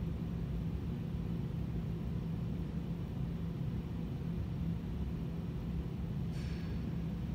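A steady low hum that stays unchanged throughout, with one brief high-pitched squeak about six and a half seconds in.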